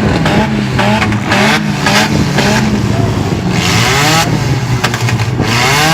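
Several demolition derby cars' engines running and revving together, their pitches rising and falling over one another, with a few sharp knocks.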